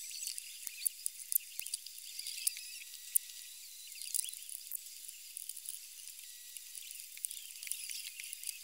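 Faint clicks and scrapes of a wooden tool digging modelling clay out of a plaster mold, with lumps being set down. Only the high end is heard, so they sound thin and tinny.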